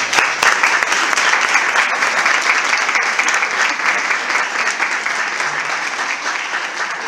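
Audience applauding, a dense clapping that slowly eases off toward the end.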